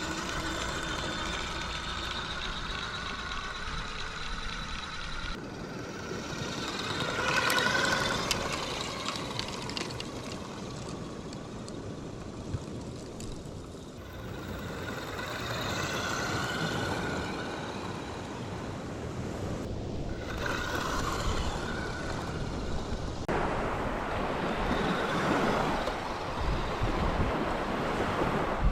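Electric motor and gears of a 3D-printed radio-controlled truck whining as it drives, the whine rising and falling with speed over a steady rush of wind noise. The sound changes abruptly several times.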